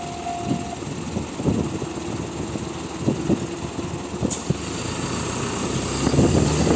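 A Japanese level-crossing warning bell (Tohoku-type alarm) rings in a pulsing tone and stops about a second in. After it, a low vehicle engine rumble runs with irregular thuds and grows louder near the end.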